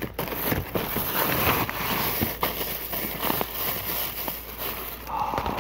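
Paper, documents and plastic bags rustling and crinkling as they are handled and rummaged through, with many small clicks and knocks of things being moved.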